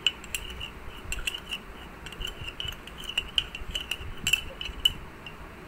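Metal spoon stirring salt into water in a ceramic mug, clinking against the inside of the mug over and over, each tap with a brief ring, to dissolve the salt.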